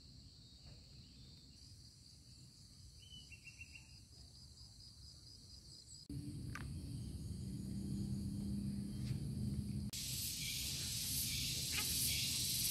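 Outdoor rural ambience with insects trilling steadily, and a brief run of rapid chirps about three seconds in. About six seconds in, the sound jumps louder with a steady low hum, and a loud high hiss swells in near the end.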